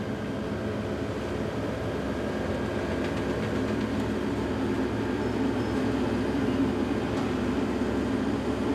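Grape harvester's engine running steadily as the machine works along a row of vines, growing slightly louder.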